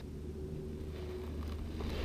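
Low steady rumble of wind on the microphone, with a few faint clicks near the end.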